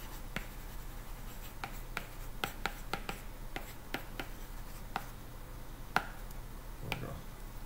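Stylus handwriting on a tablet: a string of light, irregular taps and scratches as words are written, with one sharper tap about six seconds in, over a faint steady low hum.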